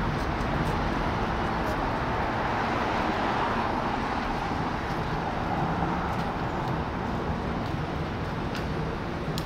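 Steady city traffic noise: cars running along the street as a continuous hum.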